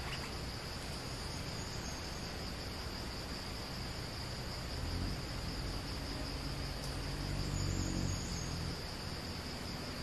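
Steady high-pitched insect drone from crickets or cicadas in the forest. A low rumble swells and fades in the second half.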